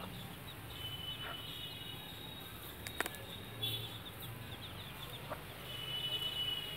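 Week-old chicks peeping: high, thin cheeps in three short spells, with a sharp click about three seconds in.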